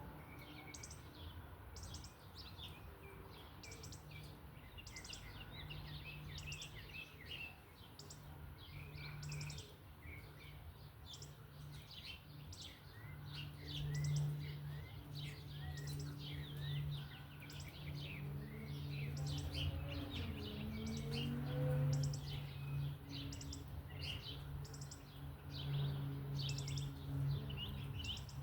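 Small birds chirping and calling rapidly and continuously, many short high notes overlapping. Under them, from a few seconds in, a steady low hum rises and falls in loudness.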